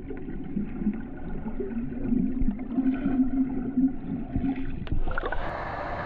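Water heard from underwater: a muffled, low steady drone with bubbling and a few knocks. About five seconds in it switches to the full, even rushing of a waterfall heard above water.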